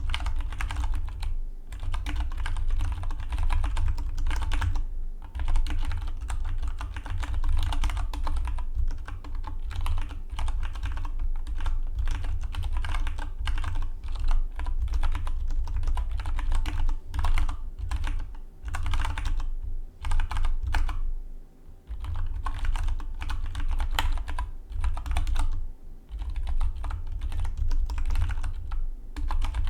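Fast, continuous typing on a Dygma Defy split mechanical keyboard, a rapid run of key clicks with a few short pauses between words.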